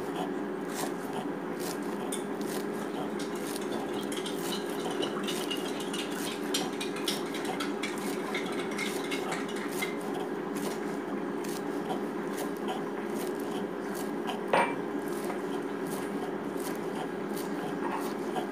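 Kitchen knife chopping green onions on a cutting board: a fast, uneven run of blade taps on the board, with one louder knock about three-quarters of the way through. A steady hum runs underneath.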